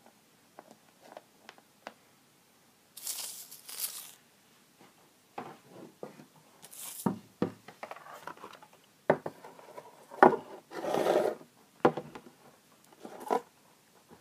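Handling noises: small plastic toy figures tapped down on a wooden floor, with scattered clicks and several bursts of rustling and scraping as things are moved and a printed game board is laid out.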